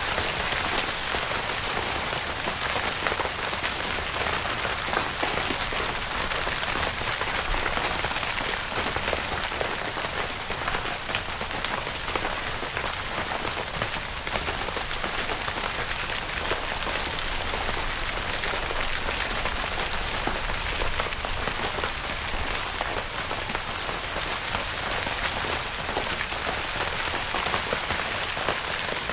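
Steady rain falling on a tent, a dense, even patter of drops on the fabric.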